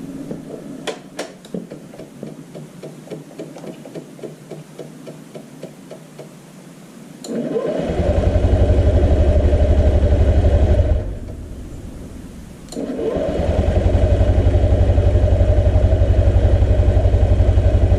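Electric starter cranking a 2005 Honda Metropolitan scooter's 49cc four-stroke single in two long attempts, after a quieter stretch of even ticking. The engine does not fire up yet, being still short of fuel after a fuel pump swap for a no-start.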